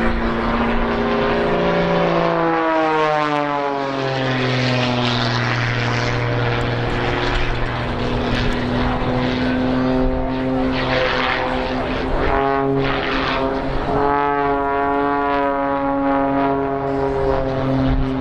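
The Muscle Biplane, a Pitts S-2S aerobatic biplane, flying aerobatics: its piston engine and propeller run hard and steadily. The pitch drops a few seconds in, dips again about two-thirds of the way through, then climbs.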